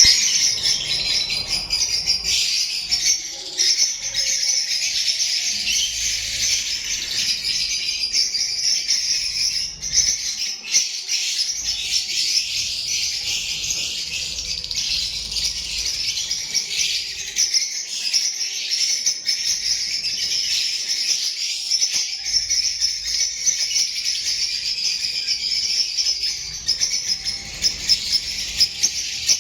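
A flock of African lovebirds chattering and screeching, many high-pitched calls overlapping into a continuous shrill din.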